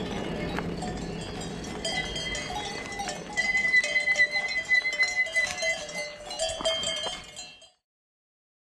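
Cowbells on grazing cows clanking and ringing irregularly, loudest from about three seconds in, over a steady rush of bicycle tyres rolling on gravel early on. The bells fade out just before the end.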